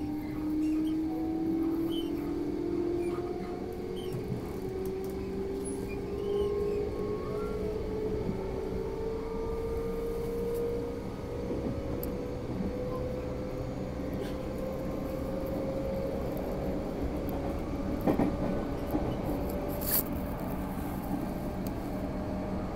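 Electric train's traction motors whining, rising steadily in pitch as the train accelerates away from a station, over the rumble of wheels on the rails, heard from inside the car. A few sharp clicks come through in the second half.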